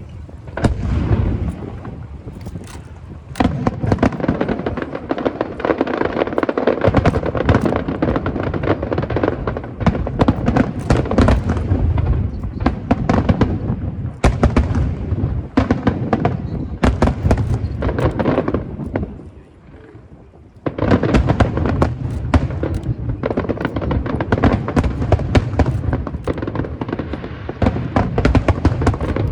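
Fireworks display: aerial shells bursting in rapid, overlapping bangs and crackle, with a short lull about twenty seconds in before the bursts resume.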